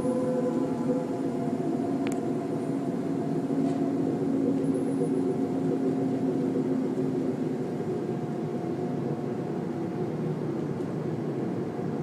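A steady low droning hum made of several held tones over a rushing noise, the tones slowly fading.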